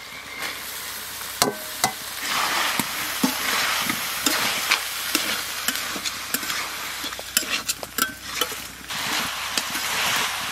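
Flat metal spatula stirring chicken, potatoes and shredded banana flower in a metal kadai, with repeated sharp clicks and scrapes of the spatula on the pan over the sizzle of the frying food.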